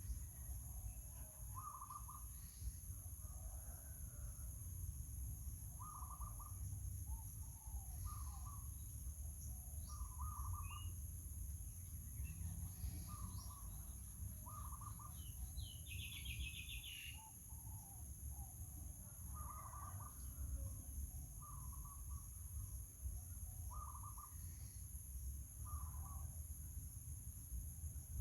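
Short bird calls repeated every second or two, with a brief fast high trill partway through, over a steady high-pitched drone and a low rumble.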